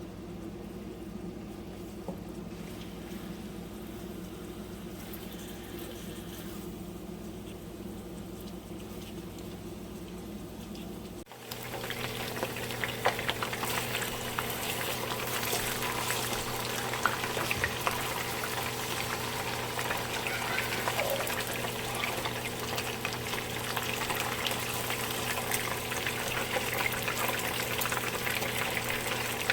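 A steady low hum, then, about a third of the way in, an abrupt change to louder, continuous sizzling and crackling of spiced chicken pieces frying in hot oil in a pan.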